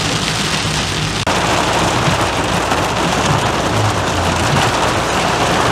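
Heavy rain beating on a moving car's roof and windscreen, heard from inside the cabin over a low engine and road hum. The rain noise jumps louder and brighter after a sudden break a little over a second in.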